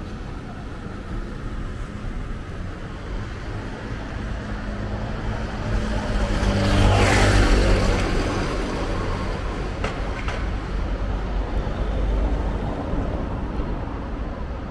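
A motor vehicle drives past close by, building to its loudest about seven seconds in and then fading, over a steady hum of street traffic.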